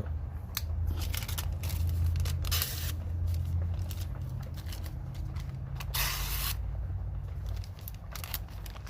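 Stainless-steel pocket knife blade being tried out on a cut: two short slicing swishes with small clicks and handling noises between them, over a steady low hum.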